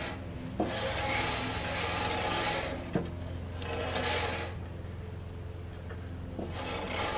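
Scraping and rubbing of a new bandsaw blade being worked onto the saw's wheels by hand, in two long scrapes with small knocks between, then quieter handling.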